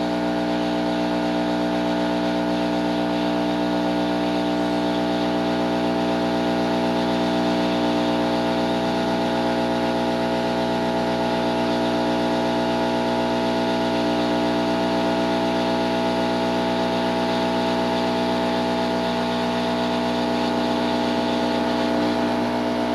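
Electric heat gun running steadily, its fan motor giving a constant whine over a rush of hot air, as it heats a solder seal connector on a wire joint to melt the solder inside.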